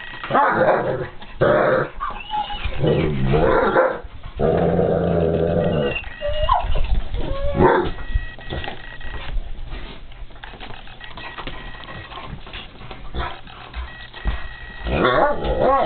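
Two Irish wolfhounds growling and whining at each other: a young female guarding her pillow spot while the other dog teases her. A rapid run of calls, one held for a couple of seconds, is followed by gliding whines, a quieter stretch, and a few more calls near the end.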